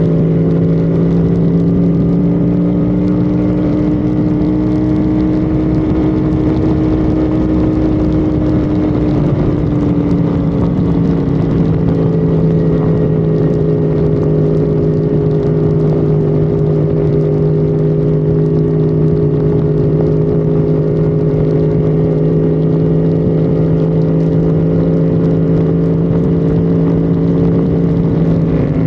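Honda Civic FD's engine running hard at a steady high speed, heard from on board with road and wind noise, its pitch dipping briefly about nine seconds in and then holding steady again.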